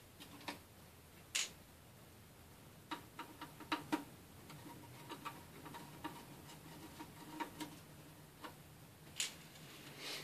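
A screwdriver removing small screws from a laptop's plastic chassis: scattered light clicks and taps at an uneven pace, with sharper ones about a second and a half in, around four seconds in and about nine seconds in.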